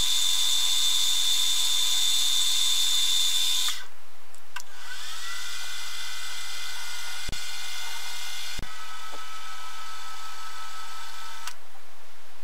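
Bench milling machine spindle whining steadily while an end mill cuts aluminium. Partway through, the sound breaks off and the spindle is heard spinning up with a rising whine, then running steadily until it stops abruptly.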